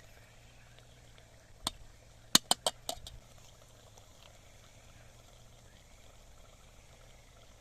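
A handful of sharp clicks or knocks, one a little under two seconds in and four in quick succession about a second later, then faint outdoor background.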